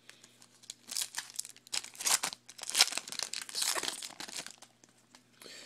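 Foil trading-card pack wrapper being crinkled and torn open by hand, in irregular crackling rustles from about a second in until shortly before the end.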